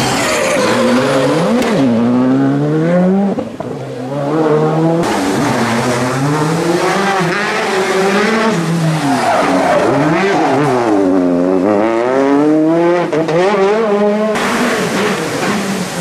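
WRC2 rally cars, a Škoda Fabia R5 first, driven hard through tight corners, engines revving up and down over and over as they brake, change gear and accelerate. The sound switches abruptly to another car's pass about five seconds in and again near the end.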